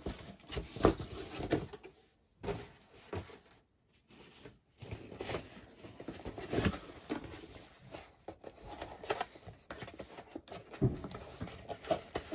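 Paper and plastic stationery items and packaging being handled: irregular rustles, with short knocks and taps as items are picked up and set down, the sharpest about a second in and at about six and a half seconds.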